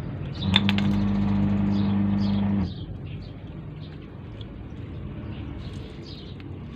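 Washing machine motor humming steadily at one pitch, then cutting out abruptly less than halfway through, as in an agitation cycle that runs and pauses. Faint small taps follow.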